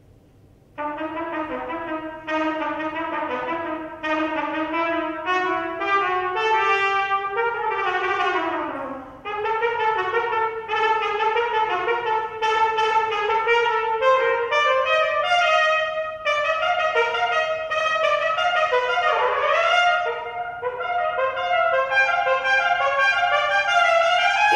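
Solo trumpet playing a largely unaccompanied concerto passage of quick runs and held notes. It enters about a second in, after a short pause. It swoops down in pitch around eight seconds in and again near nineteen seconds.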